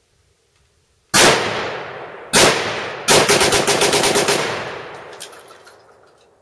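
Ruger Mini-14 semi-automatic rifle in .223/5.56 firing two single shots, then a fast string of a dozen or more shots in quick succession. Each shot has a long echo tail that dies away at the end.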